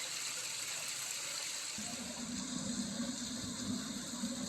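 Steady rushing of water, with a low rumble joining in about two seconds in.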